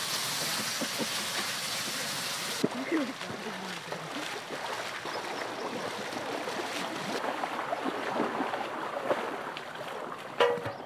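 Chicken keema patties sizzling in hot oil on a flat iron pan for about the first three seconds. Then splashing and running water as people wade through a shallow stream. A brief, louder sound comes near the end.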